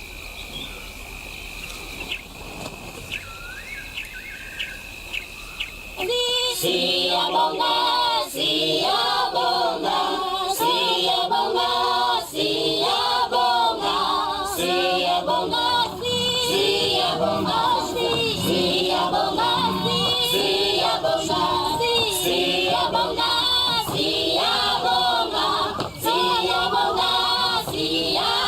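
Soft outdoor ambience with a few bird chirps, then about six seconds in, loud choir-style vocal music comes in abruptly and carries on in repeated sung phrases.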